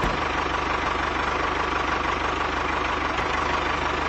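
Diesel tractor engine idling steadily with an even, rapid low chugging.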